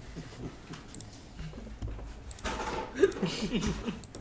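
Faint, indistinct voices of people talking, with a little laughter.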